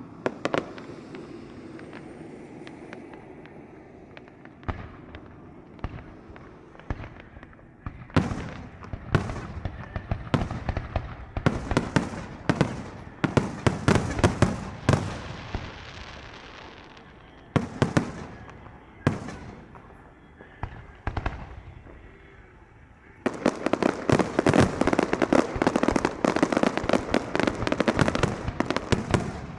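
Aerial fireworks bursting in a finale: scattered bangs and crackles, then, about three-quarters of the way through, a dense rapid barrage of bangs that does not let up.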